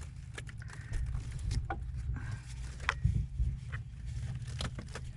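Scattered light clicks and knocks of hands handling pipe and tools, over a steady low rumble.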